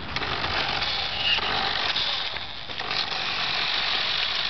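Radio-controlled toy car, a Mitsubishi Eclipse Spyder model, driving over asphalt: the steady whir of its small electric motor and gears.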